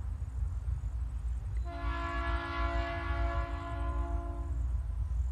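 TasRail 2050-class diesel locomotive's horn sounding one steady multi-note chord blast of about three seconds, starting a couple of seconds in, from the approaching coal train. A low rumble runs under it throughout.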